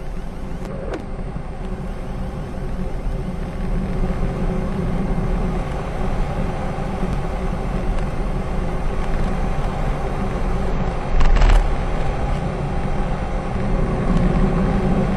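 Air Tractor AT-802 single-engine air tanker in low flight: a steady turboprop engine and propeller drone under heavy wind rush, growing a little louder. There is a brief loud thump about eleven seconds in.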